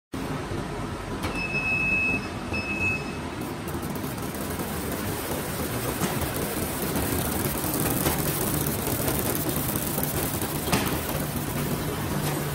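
Paper-plate shrink packing machine running, a continuous mechanical clatter and hum as plates are fed and wrapped in film. Two short high beeps come about a second in, and a few sharp clicks follow later.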